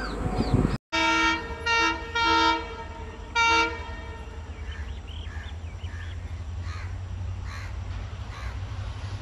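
Horn of an approaching EMD WDP4D diesel locomotive sounded in four blasts, the third the longest, followed by the locomotive's low, steady rumble as it nears.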